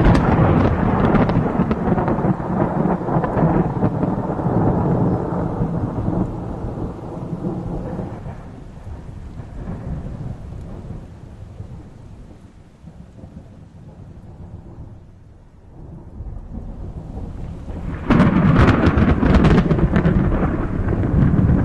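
Thunder rumbling loudly and slowly dying away over about ten seconds, then a sudden sharp thunderclap with crackle about eighteen seconds in, rolling on into a heavy rumble.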